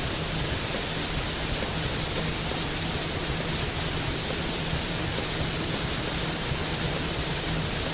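Cartoon sound effect of liquid spraying hard from a pipe: a steady hiss.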